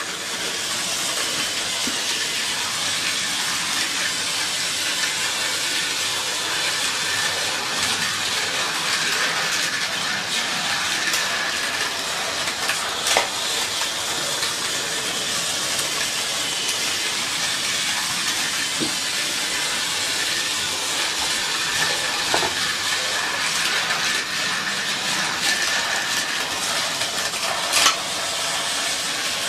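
Battery-powered Tomy Trackmaster Thomas toy engine running on plastic track: a steady motor whir with a faint whine and wheel rattle, broken by a few sharp clicks.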